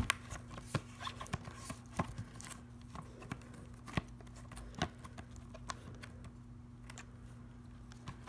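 Fingers handling and turning a small cardboard box, giving scattered light taps, clicks and scrapes, over a steady low hum.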